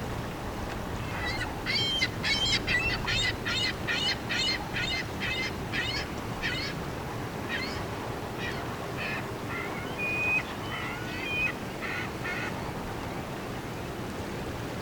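Birds giving a rapid series of short, pitched calls, about two to three a second, thinning out after about seven seconds and stopping near the end, over a steady low background noise.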